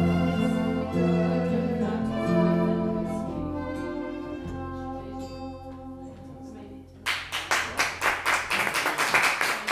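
A small acoustic band of guitar, double bass, violin and flugelhorn holds its closing chord, which slowly fades away. About seven seconds in, audience clapping breaks out suddenly.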